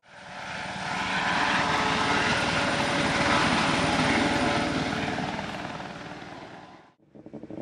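Helicopter flying over, its rotor chopping rapidly. It grows louder over the first second or so, stays loud, then fades and cuts off about seven seconds in.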